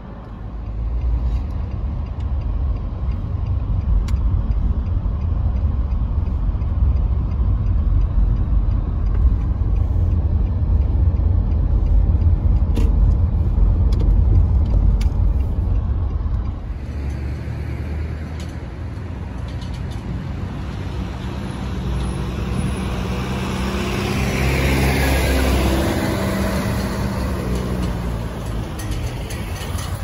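Road noise from inside a moving car: a steady low rumble of tyres and engine. About halfway through, the rumble drops and a lighter hiss of traffic takes over, swelling for a few seconds near the end.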